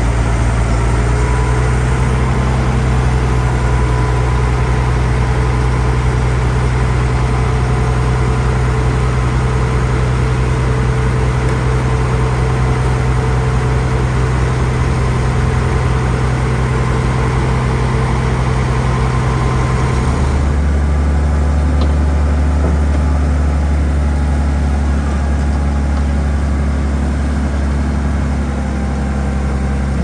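Heavy diesel engine of earth-moving machinery running steadily at a loud level. About twenty seconds in, its note drops to a lower, deeper pitch and the sound turns duller.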